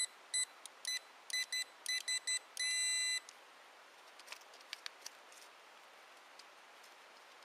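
A handheld Xpointer metal-detecting pinpointer beeping: a quick run of short, high beeps of uneven length, ending in one longer beep about three seconds in. After that only a few faint clicks.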